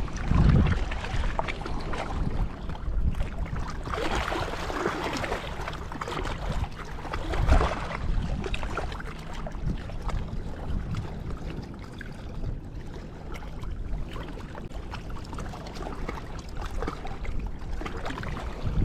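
Wind buffeting the microphone: a rough, uneven low rumble with gusts, strongest about four to eight seconds in.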